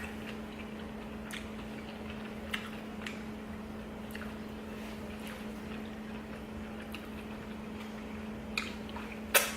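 A person chewing food, with short wet mouth clicks and smacks every second or so, the sharpest near the end. A steady low hum runs underneath.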